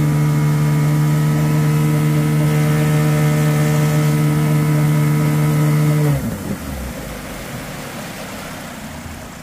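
10 hp Evinrude long-shaft outboard running steadily at full throttle, pushing the pontoon boat at about 8 mph. About six seconds in it is throttled back: the pitch falls and the engine settles to a lower, quieter speed over the wash of water.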